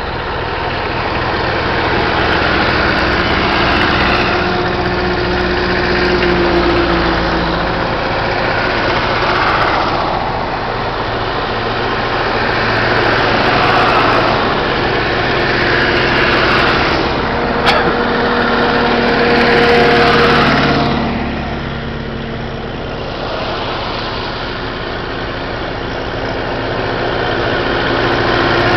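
Engines of vintage tractors running as they drive past one after another, the sound swelling and fading as each passes. There is a brief sharp click about two-thirds of the way through.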